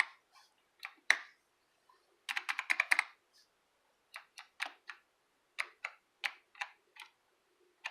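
Clicky white Alps key switches on a keyboard being pressed unevenly: a few single clicks, a quick burst of rapid clicks about two seconds in, then single key presses two or three a second.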